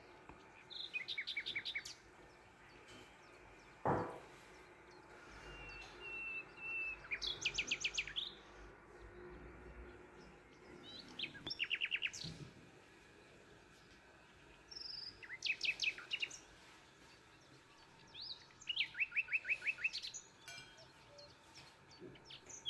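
A small bird chirping in quick trills of short, sharp notes, about five bursts a few seconds apart. A single knock sounds about four seconds in.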